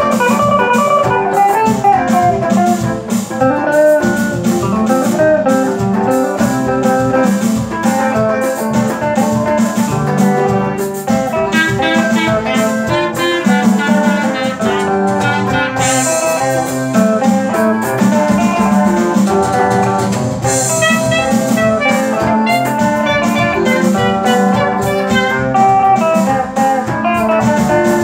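Live instrumental gospel praise music: a clarinet plays the melody over Yamaha electronic keyboards and an electric guitar, at a steady level without a break.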